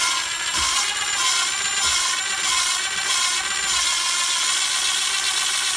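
Valve lapping in a small-block Chevy Vortec cylinder head: the valve face spinning against its seat with fresh valve grinding compound, making a continuous, loud metallic grinding that cuts off abruptly near the end. This is the coarse sound of fresh compound cutting the seat, which softens as the grit wears finer.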